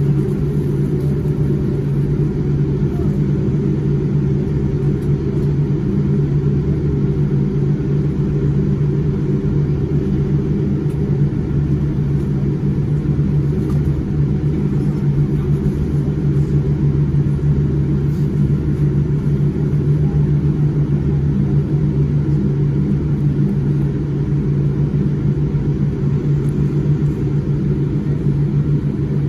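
Cabin noise of a Boeing 787-9 taxiing: a steady low hum and rumble from its Rolls-Royce Trent 1000 engines at taxi power, heard from inside the cabin.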